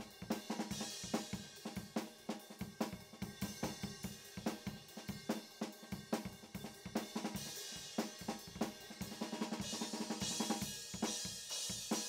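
Background music over the credits: a drum kit playing a steady beat with snare, bass drum, hi-hat and cymbals, the cymbals growing louder near the end.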